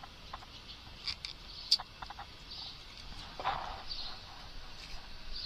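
Small sharp clicks and taps of metal multimeter probe tips and fingers handling a bare circuit board, a few in a cluster with one louder click, then a short rustle.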